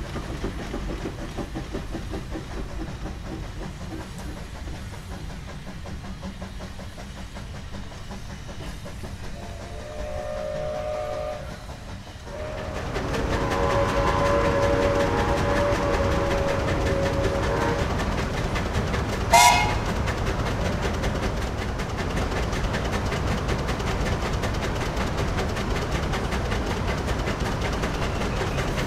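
Steam traction engine running under belt load, its exhaust beating in a steady rapid rhythm. A steam whistle sounds briefly about ten seconds in, then blows a longer chord-like blast of about five seconds. A short shrill toot follows just after.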